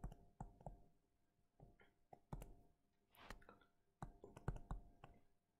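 Faint, irregular clicks and taps of a stylus on a tablet screen during handwriting.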